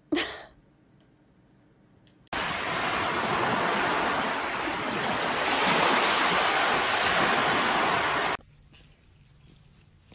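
A steady rushing noise that starts abruptly about two seconds in, lasts about six seconds and then cuts off suddenly.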